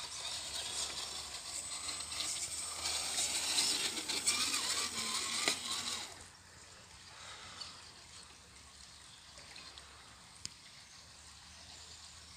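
Electric RC crawler's motor and gears whining, wavering in pitch, with its tyres on loose dirt for about the first six seconds. After that only a quieter, steady rush of a shallow stream remains.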